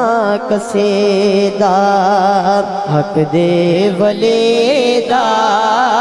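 A young man's voice singing a naat into a microphone: long held notes and wavering melismatic runs without clear words, amplified through a sound system.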